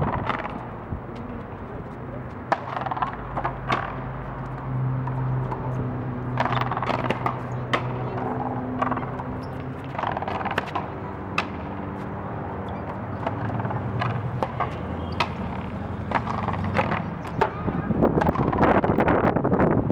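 Sharp cracks of a raqueta frontón ball struck by rackets and rebounding off the frontón wall, coming irregularly about a second or so apart during a rally.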